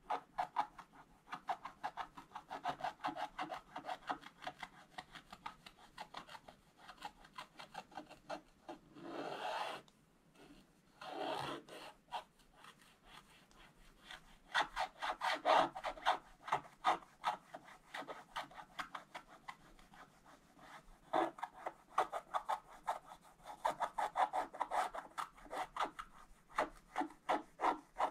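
Wooden scratch stylus scraping the black coating off a scratch-art page in quick short back-and-forth strokes, with a couple of longer, smoother scrapes near the middle.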